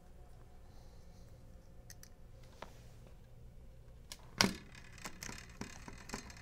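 Small clicks and taps of screws being driven to fasten a 3GL cellular communicator module onto the alarm panel's circuit board, with one sharp knock on the plastic housing about four and a half seconds in.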